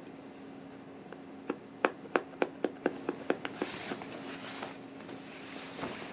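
A quick run of about nine sharp clicks, some four a second, then fabric rustling and sliding over a cutting mat as the cloth is gathered up and moved.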